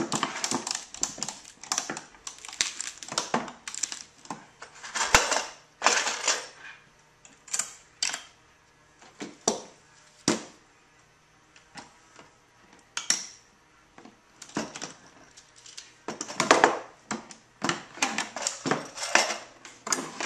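Steel strapping tools working a steel band on a wooden crate: quick runs of metallic clicks and clanks at the start and again near the end, with a few louder knocks about five seconds in and sparser clicks between.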